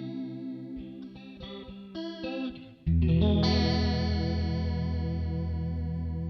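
Electric guitar played through a Kmise Analog Chorus pedal: a few picked notes, then a loud chord struck about three seconds in and left to ring.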